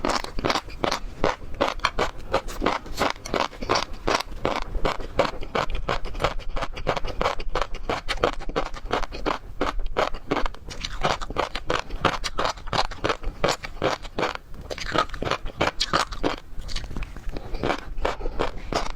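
Close-miked eating of raw seafood such as prawns and shrimp: a continuous run of crunching, scraping and crackling bites and chews, several a second, without a break.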